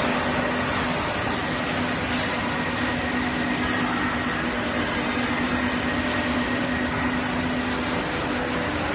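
Steady mechanical drone of factory machinery, with a constant low hum running through it.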